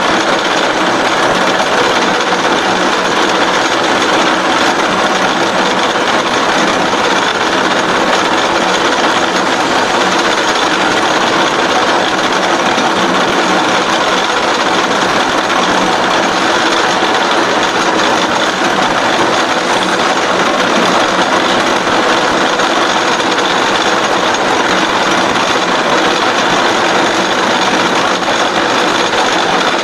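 CNC H-beam bevelling machine running steadily, its milling cutter cutting a bevel into the edge of a steel beam.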